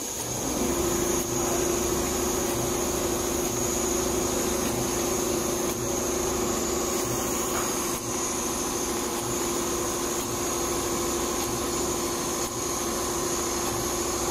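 Computerized multi-head leather pattern sewing machine running steadily, its needle stitching a quilted pattern into a leather car-interior panel: a continuous mechanical chatter under a steady hum and a thin high whine.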